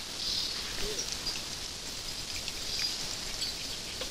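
Quiet outdoor ambience: an even, steady hiss with a few faint, short high chirps, likely small birds.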